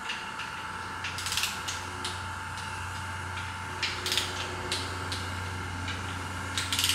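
A torque wrench ratcheting in three short bursts of rapid clicks as the Torx bolts of a camshaft thrust plate are tightened, over a steady low hum.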